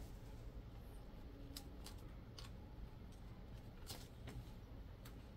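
Faint scattered clicks and scratches, about six in all, from two kittens wrestling on a woven plastic mat, their claws and paws catching on the mat, over a low steady background hum.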